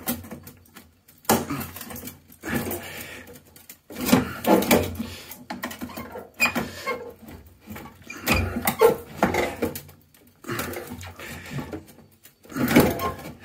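Large screwdriver levering and scraping under a stiff return-pipe connection at the base of a Worcester Bosch boiler heat exchanger, prying it loose. It comes in irregular bursts of scraping and knocking with short pauses between them.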